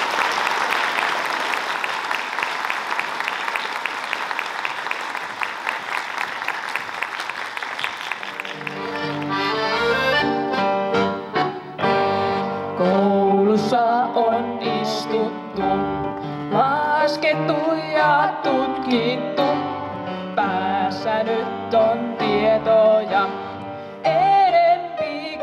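Audience applauding for about nine seconds, then live music starts: a melody with wavering, held notes over sustained chords.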